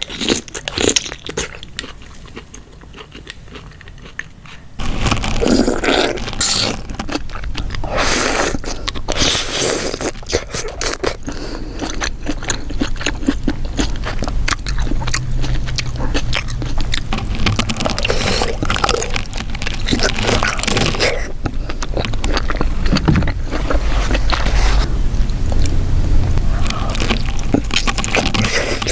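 Close-miked eating of a saucy seafood boil of mussels and shrimp: biting, chewing, lip smacks and shell scraping in a dense run of clicks. About five seconds in, the sound gets louder and a steady low hum runs underneath.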